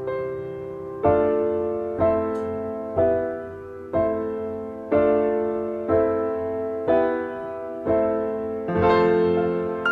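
Instrumental stretch of a song with no singing: a piano-like keyboard strikes a chord about once a second, each chord ringing and fading before the next.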